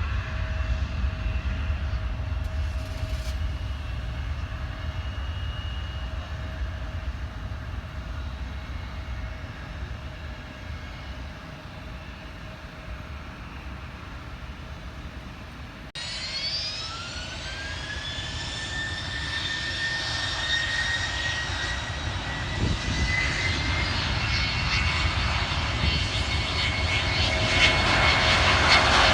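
Jet airliner engines. A low rumble with a faint steady whine fades away, then it cuts abruptly to a new engine whine that rises in pitch, levels off and grows louder toward the end, over a deep rumble.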